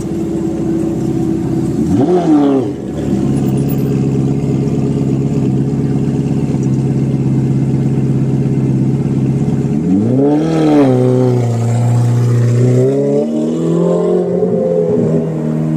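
Ferrari F430's V8 engine idling steadily. It is revved in a short blip about two seconds in, again around ten seconds in, then holds a raised idle before a smaller rev near the end.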